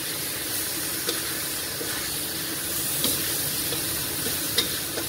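Tempeh and chicken frying in hot oil with a cooked spice paste, a steady sizzle, with a few light knocks of the spatula as they are stirred.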